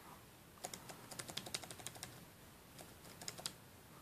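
Laptop keyboard keys pressed in quick runs: a rapid flurry of key taps starting about half a second in, then a shorter burst about three seconds in.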